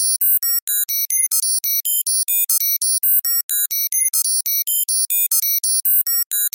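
Computer data-processing sound effect: a fast run of short synthesized beeps at jumping pitches, about seven a second.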